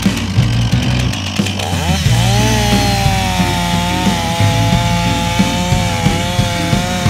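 STIHL chainsaw running at full throttle while boring into a tree trunk behind the face cut, the plunge cut that sets up the hinge. The engine note rises about two seconds in and then holds high and fairly steady as the chain cuts through the wood.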